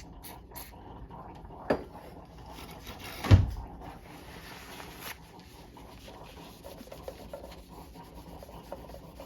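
Rubbing and scraping at sticker residue on a coffee grinder's housing, with a small click and, about three seconds in, one sharp knock.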